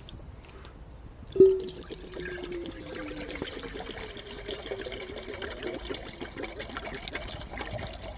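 Filtered water being poured into a cooking pot, a steady splashing pour with a wavering ringing note from the pot. A sharp knock about a second and a half in starts it off.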